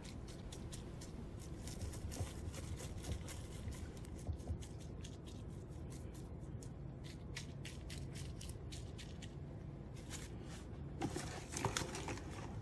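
Faint crinkling of plastic cling wrap as hands press it down onto ceviche in a stainless steel bowl and smooth it along the sides: a scatter of small crackles over a low steady background hum.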